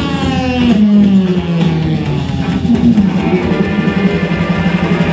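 Live rock band playing electric guitar and drums, with a long note sliding down in pitch over the first two seconds.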